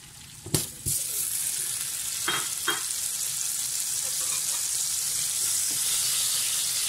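Butter sizzling as it melts in a hot stainless steel pot. The sizzle starts right after two sharp knocks about a second in and builds slightly. Two lighter clicks come a couple of seconds later.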